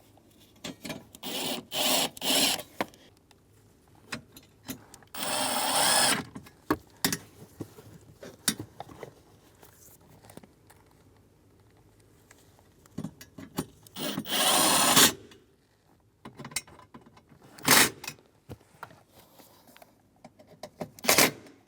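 Hand-tool and parts-handling noise during car interior reassembly: three longer bursts of scraping and rubbing, about a second in, near six seconds and near fifteen seconds, with scattered short clicks and knocks in between, as T20 Torx screws are started into the parts.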